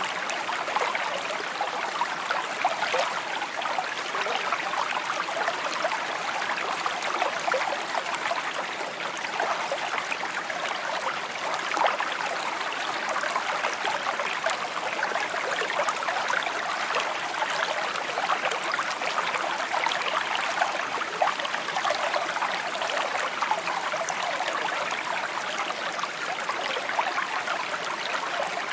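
A shallow stream babbling and trickling steadily over rocks, a continuous rippling water sound with many small splashes.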